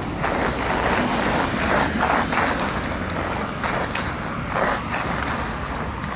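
Footsteps scuffing along a wet, icy footpath, roughly two steps a second, over a steady low rumble.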